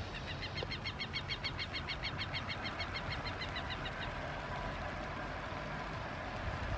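A bird sings a fast, even trill of about seven short high notes a second, lasting about four seconds. Underneath is a steady low rumble from the Embraer 195-E2 jet taxiing onto the runway.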